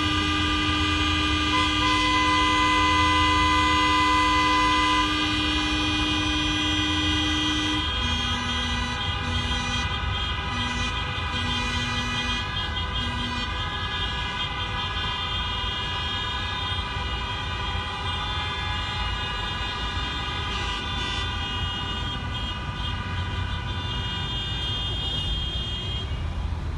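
Several car horns sounding at once in long held blasts over road traffic. A lower horn holds one long note for the first eight seconds, then gives about five short honks.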